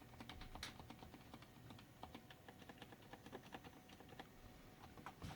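Faint, quick keystrokes on a keyboard's spacebar, enter and right shift keys, struck at medium force: a string of soft, irregular clicks.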